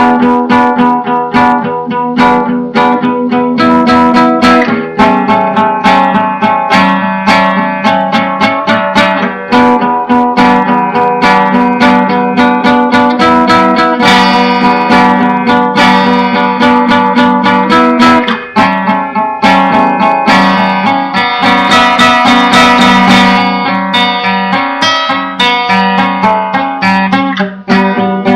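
Acoustic guitar improvisation: quick picked and strummed notes over a low note that keeps ringing, loud throughout.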